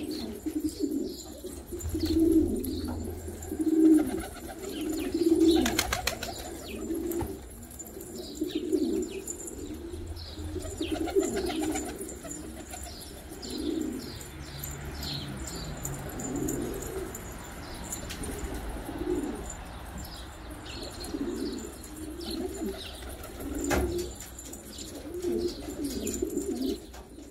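Domestic pigeons cooing over and over, in short low calls, loudest a couple of seconds in.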